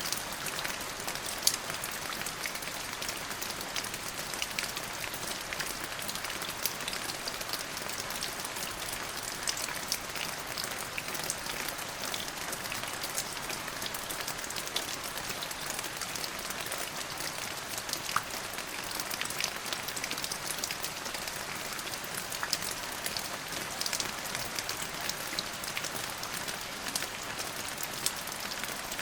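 Steady rain falling on a surface, with a dense patter of close drop hits over an even hiss.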